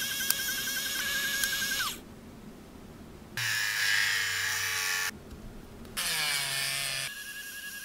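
A small hand-held electric tool motor, a mini rotary tool, whirring in several short bursts of one to two seconds each, some falling in pitch as the motor spins down.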